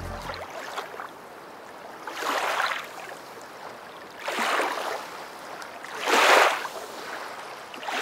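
Waves washing in: four swells of rushing water about two seconds apart over a low steady hiss. The tail of background music ends about half a second in.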